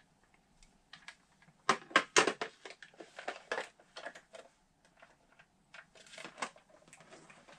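A red rotary desk telephone being handled, with irregular plastic clicks and knocks as the handset is set back on its cradle. The clatter is loudest about two seconds in.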